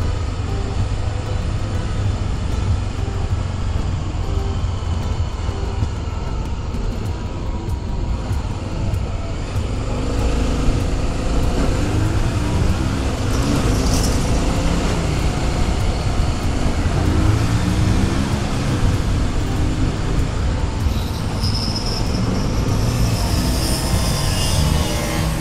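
Motorcycle engine running under way with a steady low rumble of wind on the microphone; from about ten seconds in, the engine note rises and falls as the speed changes. A high steady tone joins in near the end.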